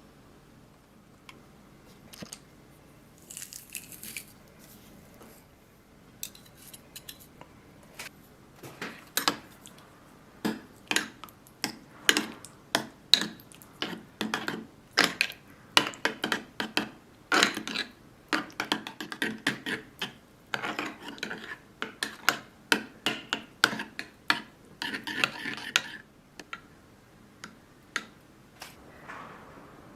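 Kitchen utensils at work: a run of sharp, irregular knocks and clinks against a board or dishes, sparse at first, busy through the middle and thinning out near the end, with a couple of brief scraping sounds.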